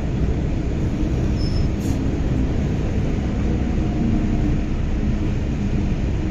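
Steady low rumble inside a Hong Kong MTR Island Line M-Train car at a station platform.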